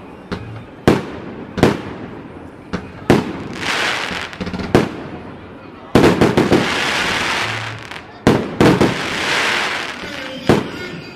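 Fireworks going off: a series of sharp bangs from bursting shells, about eight in all, with longer crackling, hissing spells in between as the bursts shower down.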